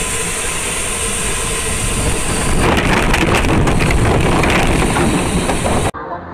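Vehicle-mounted dashcam audio: loud, steady road and engine noise of a vehicle in motion. About three seconds in it turns into a harsh, rattling, scraping rumble, the sound of the vehicle crashing. It cuts off suddenly near the end.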